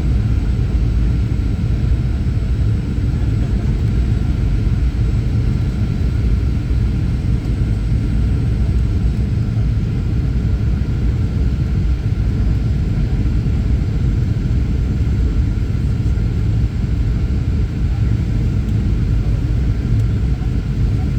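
Steady low rumble of engines and rushing air heard inside the cabin of a Boeing 737 on approach, with a faint steady whine above it.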